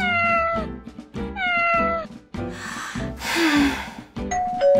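Cat meow sound effect: two meows, each falling in pitch, one at the start and one just over a second in, over light background music. About halfway through comes a short burst of hissing noise.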